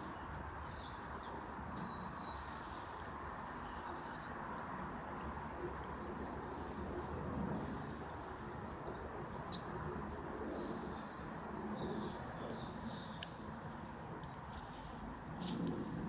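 Small songbirds chirping and singing in short high phrases scattered throughout, over a steady low background rumble.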